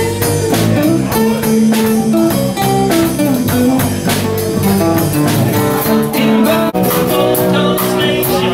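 Live band playing an instrumental passage: amplified acoustic guitar over electric bass and drums. About two-thirds of the way through, the music cuts off abruptly and a different passage starts.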